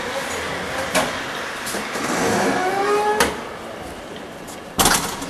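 Heavy door being pushed open with a drawn-out, slowly rising creak and a couple of clicks, then a loud knock near the end.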